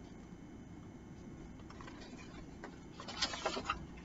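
Quiet room tone, then about three seconds in a short burst of rustling and light knocks as the pages of a picture book are handled and turned.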